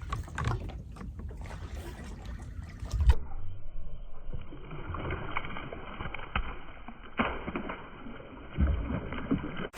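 Water splashing around a boat, with several sharp knocks, as a hooked largemouth bass is fought and landed.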